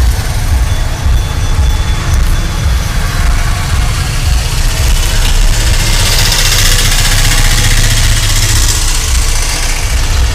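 A large engine idling steadily with a low rumble. A hiss swells for a few seconds past the middle.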